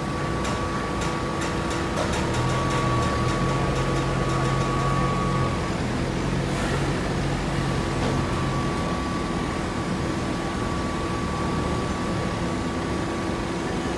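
Conveyor and fiber baler running, a steady industrial machine hum with several held tones. A lower hum comes in twice, and quick clicks rattle through the first few seconds.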